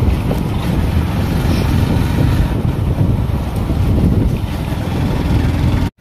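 Wind buffeting the microphone of a moving motorcycle, a steady low rumble of wind and riding noise. It cuts off abruptly just before the end.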